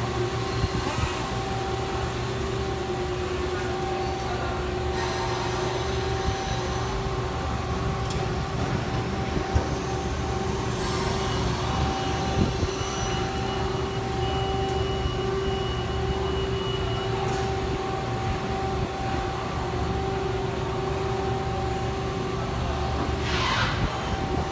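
CNC turning-milling lathe running: a steady machine hum with two constant tones. Two high hissing bursts of about two seconds each, about five and eleven seconds in, and a short rushing noise near the end.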